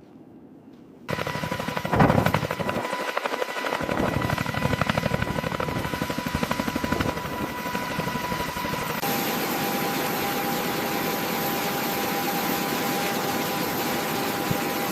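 Helicopter turbine engines and rotor running. The sound starts suddenly about a second in, with a fast rotor chop under a steady whine, then changes abruptly about nine seconds in to a steadier, even whine.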